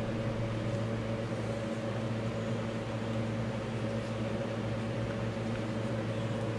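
Steady machine hum: a low drone with a few steady higher tones over a soft hiss, unchanging throughout.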